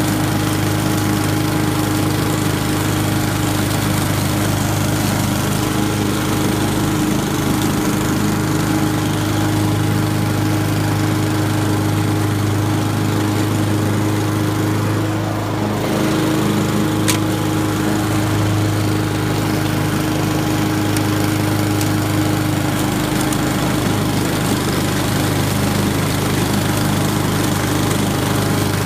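Honda walk-behind lawn mower's single-cylinder four-stroke engine running steadily at a fixed speed as it mows grass and fallen leaves. The level dips slightly about fifteen seconds in, and a single brief tick follows a moment later.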